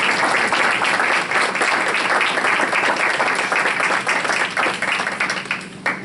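Audience applauding steadily, the clapping dying down near the end.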